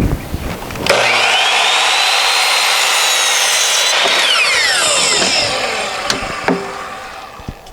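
Electric chop saw (miter saw) starting with a rising whine and running at full speed through a cut in a 2x6, then its motor winding down with a falling pitch over about three seconds.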